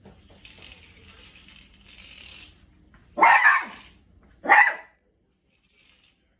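Beagle puppy giving two sharp barks a little over a second apart, the first longer, each falling in pitch: a warning bark at a new cat toy she treats as an enemy. A faint rasping noise comes before the barks.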